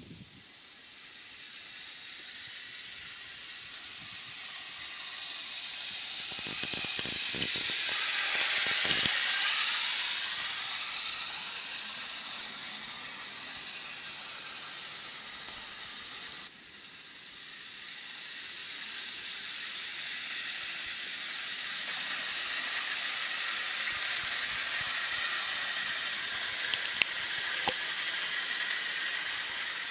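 ADRIA 0 gauge tinplate clockwork train running on the track: a high whirr from the wound spring motor and the wheels on the rails. It swells to its loudest about nine seconds in and fades, drops off sharply about sixteen seconds in, then builds again and holds steady.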